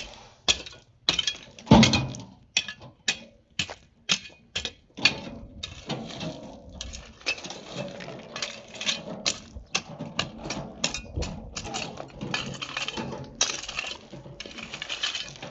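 An irregular series of sharp knocks and clinks of hard objects striking, a few a second, growing denser about halfway through.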